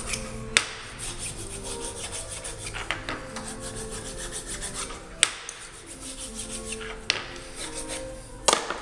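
Hands rubbing and scraping against a metal workpiece held in a machinist's milling vise, in a quick even rhythm, with four sharp metallic clicks spread through it.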